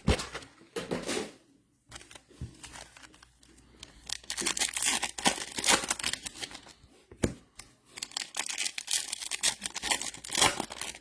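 Plastic and foil wrapping of trading card packs being torn open and crinkled: a couple of short rustles near the start, then dense crackling from about four seconds in.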